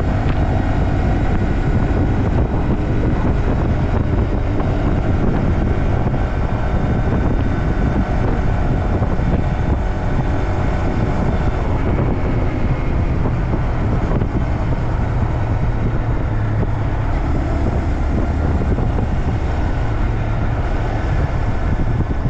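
Honda Grom's 124cc single-cylinder engine running at a steady cruise of about 40 mph, under a heavy rush of wind on the microphone and road noise.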